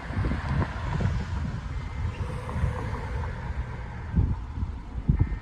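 Low, uneven outdoor rumble of wind on the microphone and street traffic, surging a few times near the end, with the weather radio's faint steady tone underneath.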